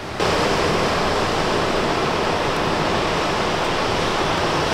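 Loud, steady rushing noise, beginning abruptly just after the start and holding even throughout.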